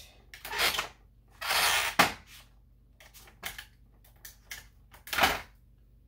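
Strips of tape pulled off a roll in a tape dispenser and torn off, with the paper wrap rustling against the bowl. It comes as a series of short rasping pulls, the longest about one and a half seconds in, with a sharp snap right after it.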